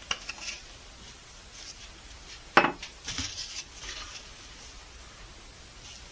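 A few light taps, then one sharp knock about two and a half seconds in, followed by a wooden stir stick scraping around a plastic mixing bucket as pigment powder is stirred into epoxy.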